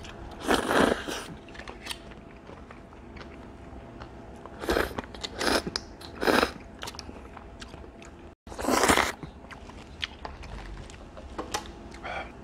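Someone eating Shanghai shrimp pasta: noodles slurped in about five loud noisy bursts, with small wet chewing clicks between them.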